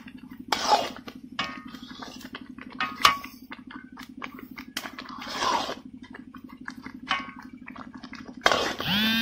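Hands mixing flour by hand in an earthenware pot, with scattered soft clicks and a few light metallic clinks of a bangle knocking against the pot, over a steady low hum. Near the end, a loud held pitched tone rises in and stays steady.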